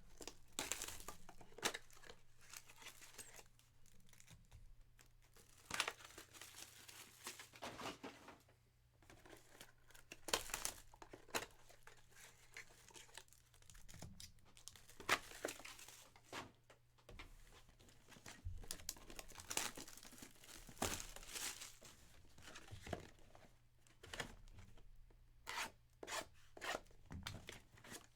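Trading-card pack wrappers being torn open and crinkled by hand, in repeated irregular scratchy bursts with sharp rips.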